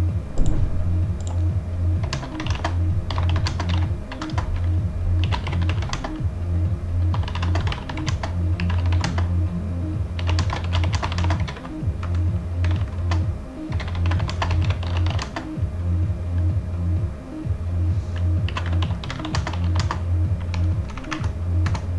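Bursts of rapid typing on a computer keyboard, each about a second long, over background music with a steady, repeating bass beat.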